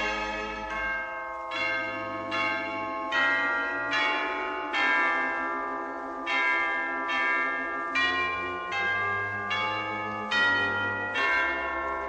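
Instrumental Christmas music in which chime-like struck bell notes ring out a slow melody, about one note every 0.8 seconds, over sustained low notes.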